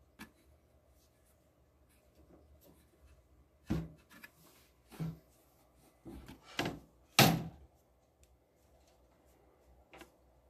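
Several hollow knocks and thuds from the snake enclosure's lid being handled and not quite closing, the loudest about seven seconds in.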